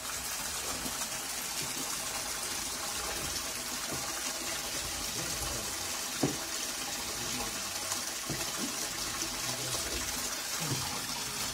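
Sugarcane juice pouring from a pipe in a steady stream into a large shallow jaggery pan, splashing into the froth already in it. A short sharp sound stands out about six seconds in.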